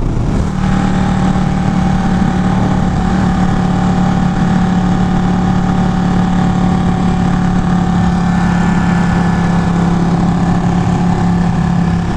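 Ducati Panigale 1199's L-twin engine running at a steady cruise, with wind rushing over the on-bike camera's microphone.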